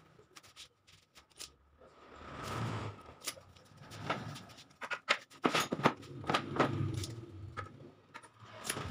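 Plywood pieces being shifted and slid across a wooden saw table, with scraping swells and a quick run of light clicks and knocks about halfway through.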